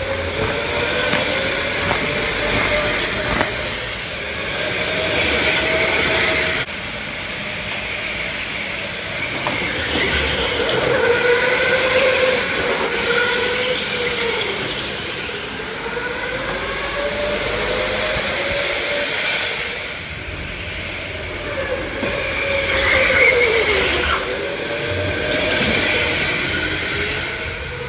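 Electric go-karts racing around an indoor track, their motors whining in a pitch that rises and falls over and over as they speed up and slow for the corners, over a steady hiss.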